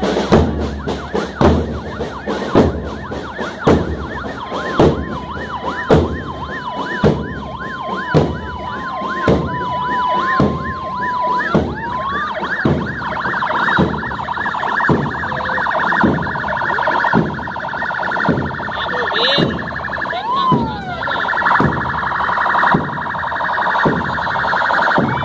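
Patrol car sirens from a slow column of police vehicles, sweeping rapidly up and down with a two-tone hi-lo note for the first half, then a denser wail in the second half. A marching drum corps keeps a steady drumbeat about twice a second underneath.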